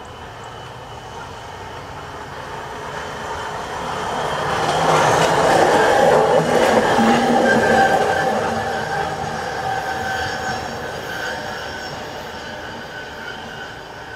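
A hi-rail pickup truck riding the track on its rail wheels passes close by. The wheel-on-rail rumble grows, is loudest about five to eight seconds in with a steady high ringing tone, then fades as it moves away.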